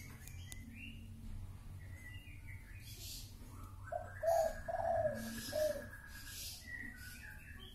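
Birds calling: chirping, with a run of short cooing calls about four to six seconds in over a longer trill.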